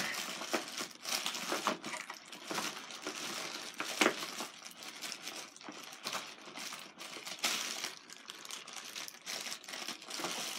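Packaging rustling as the pistol and its accessories are packed back into their box, with scattered clicks and light knocks and one sharper click about four seconds in.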